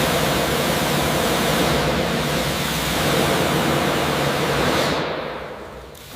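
A loud, steady rushing hiss over a low hum, which fades away from about five seconds in.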